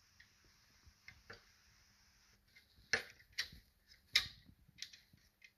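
Brass compression nut and fitting on a copper oil line clicking and tapping as they are handled and threaded by hand onto a brass elbow. A string of short, sharp, light clicks: a few faint ones about a second in, then louder ones from about three seconds in.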